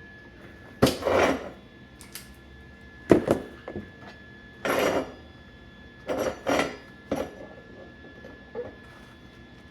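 Pieces of scrap steel clanking and scraping as they are handled and set down, about eight separate knocks and short scrapes with pauses between.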